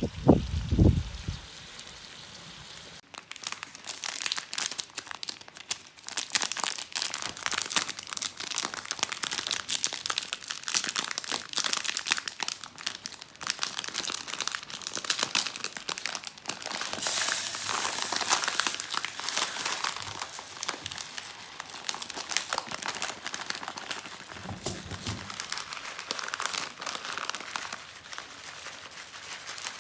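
Chicken and pork pieces frying in oil in a large paella pan: a dense sizzle full of small crackling spits.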